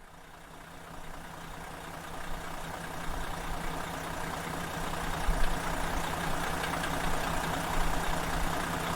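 A vehicle engine running steadily, fading in and growing louder over the first few seconds, with a constant low hum under it.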